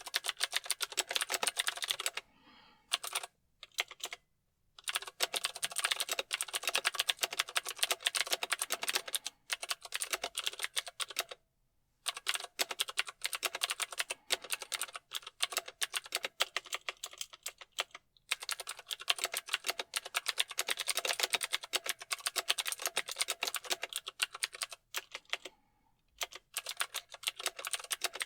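Mechanical keyboard being typed on fast: a dense run of key clicks, broken by a few short pauses.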